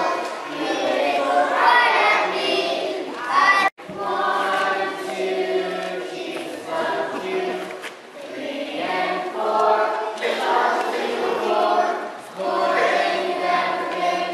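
A group of young children singing a song together, with a momentary break in the sound about a quarter of the way through.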